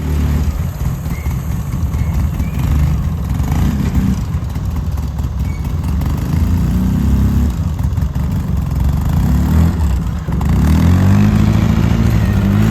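Engine of a Polaris side-by-side utility vehicle running, its pitch rising and falling several times as it is revved, most strongly near the end.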